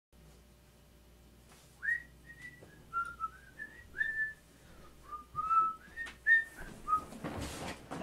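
Whistling: a run of short, clear notes that step and slide up and down in pitch, followed by a brief rustle near the end.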